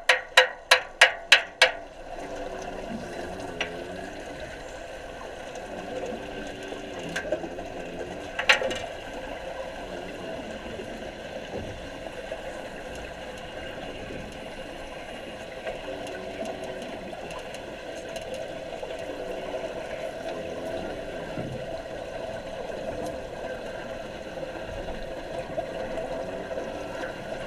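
Rapid sharp taps, about four a second, stop about two seconds in. They give way to a steady, muffled water noise with bubbling, with one sharp knock partway through.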